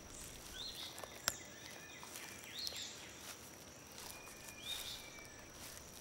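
Quiet woodland ambience with a few short bird chirps and a faint steady high tone. One sharp snap comes a little over a second in.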